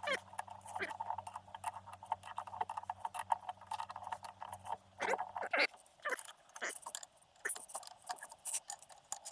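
Metal hand tools and small engine parts clinking and rattling as they are handled, a rapid string of light clicks and knocks. A low steady hum stops about halfway through.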